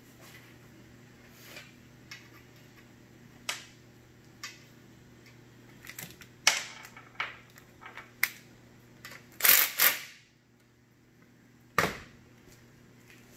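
Scattered sharp clicks and knocks of hand tools and small parts being handled in a workshop, with a loud clatter about nine and a half seconds in and a single loud knock near the end.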